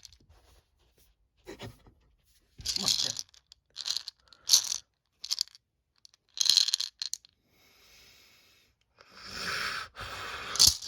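Irregular crunching and rustling noises: several short ones about a second apart, then a longer, louder rustle starting about two seconds before the end.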